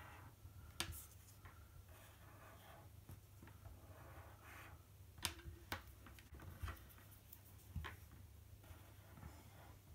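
Faint strokes of Crayola Super Tips felt-tip markers drawing on a paper planner page, with a few small sharp clicks.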